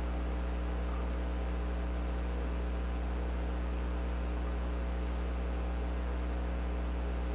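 Steady electrical mains hum with its evenly spaced overtones and a faint hiss, unchanging throughout.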